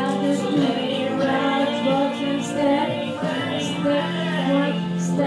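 Recorded song playing, with a sung vocal line over the instrumental backing.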